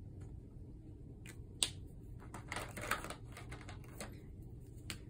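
Scattered light clicks and rustles of hands handling a sheet of bubble wrap and rummaging among plastic markers in a plastic cup, with a sharp click about a second and a half in and a quick run of clicks near the middle.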